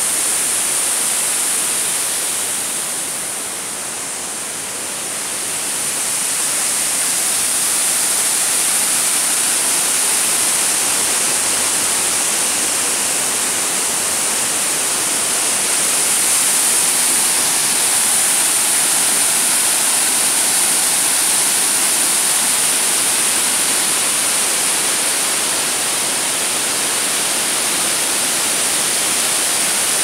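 Steady rushing of river water pouring over a low weir and churning into white water below. It dips briefly a few seconds in, then comes back slightly louder.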